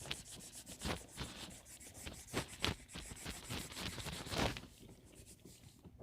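Pencil scratching on paper in quick, repeated strokes, which thin out and quieten about four and a half seconds in.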